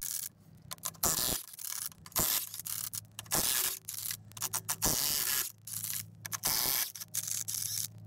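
Aerosol penetrating oil sprayed in a dozen or so short bursts of hiss onto rusted truck wheel lug nuts to loosen them, with a faint steady low hum beneath.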